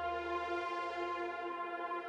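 Background music: a sustained synthesizer chord held steady, its low bass fading out about half a second in.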